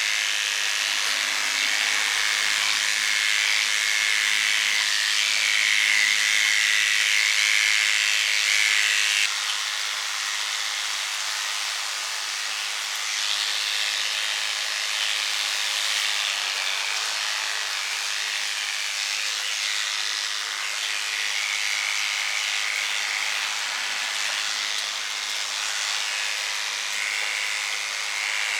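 Electric hair clippers running steadily with a high buzz while clipping a dog's hair; about nine seconds in the sound drops a little and carries on.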